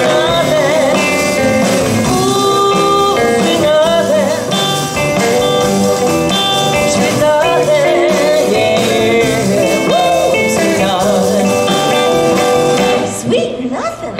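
Live rockabilly band playing: upright bass, drums and guitars under a woman singing. The music winds down near the end.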